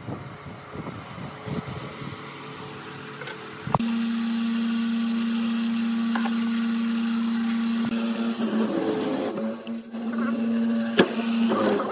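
Faint handling noises, then about four seconds in a hollow-chisel mortiser's electric motor switches on and runs with a steady hum. From about eight seconds the square chisel is fed into the wood, adding uneven cutting noise and a few knocks.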